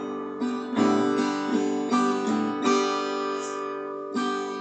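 Strummed acoustic guitar chords, a few strokes a second, playing the introduction to a sung worship song.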